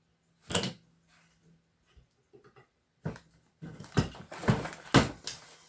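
Sharp knocks and clatter of parts and tools being handled on a bench: one knock early on, then a quick run of knocks in the last two and a half seconds.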